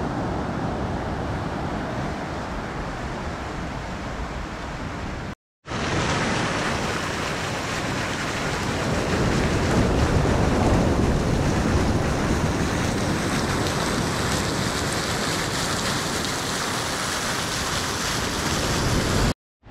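Ocean surf washing onto a beach: a steady, continuous rush of breaking waves, cut off by two brief silent gaps, about five seconds in and near the end.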